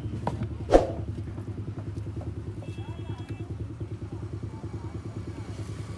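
A small engine running steadily with a fast, even pulse. A single sharp knock about a second in.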